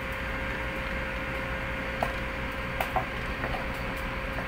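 A steady hum with one constant tone held through it, and a few sharp cracks or clicks about two seconds and three seconds in.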